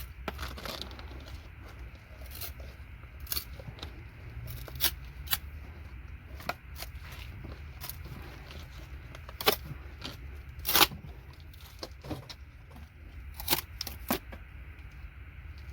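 Irregular sharp clicks and scrapes of small hard ceramic electronic parts being worked apart by hand, over a steady low hum.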